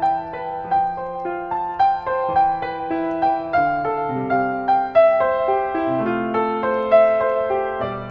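Background piano music: a gentle melody of separate notes that each start sharply and fade, at an even, unhurried pace.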